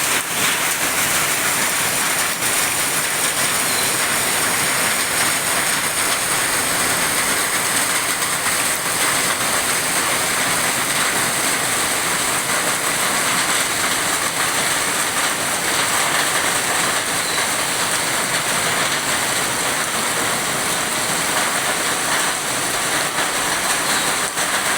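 Heavy rain pouring down steadily, a dense even hiss of rain hitting the ground and roofs.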